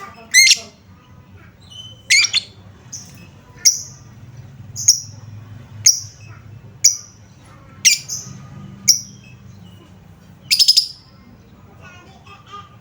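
Lovebird calling with sharp, shrill chirps about once a second, some in quick runs of two or three. This is the kind of calling used as a lure to get other lovebirds to answer.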